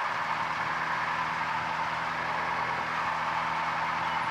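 Cessna 172's piston engine running at low taxi power, heard from inside the cockpit as a steady drone under a broad hiss of cabin noise. The engine note firms up right at the start as the plane rolls toward the runway for takeoff.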